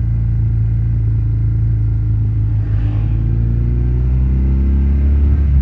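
Motorcycle engine running under way, then pulling harder as the bike accelerates, its pitch rising steadily through the second half.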